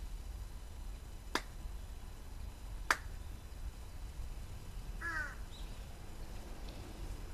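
Two sharp ritual handclaps (kashiwade) of Shinto worship, about a second and a half apart. About five seconds in, a bird gives one short falling call.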